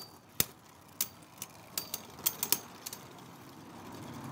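Beyblade Burst spinning tops clacking against each other and the plastic stadium: a string of sharp, irregular clicks, about eight in the first three seconds, the loudest a little under half a second in, dying away near the end.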